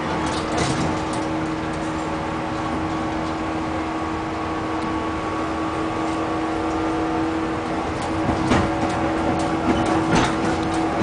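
Running noise heard inside a 115 series electric train carriage at speed: a steady rumble carrying one held tone, with a run of sharp wheel clacks over rail joints from about eight seconds in.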